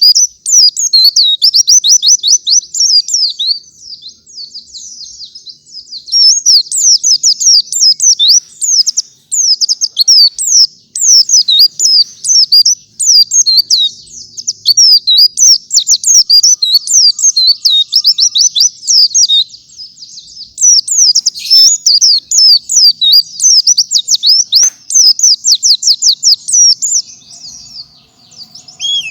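Pleci kantan (a white-eye, Zosterops) in full song: long, fast strings of high, quick chirping notes, with short lulls about four seconds in and again near the twenty-second mark.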